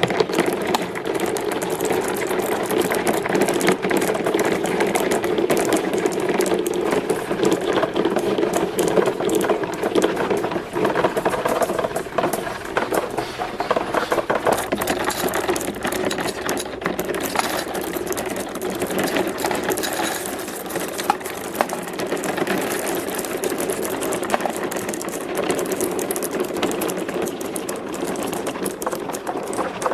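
Many marbles rolling and clattering down a plastic marble-run track, a dense, continuous rattle of small clicks over a steady rolling rumble.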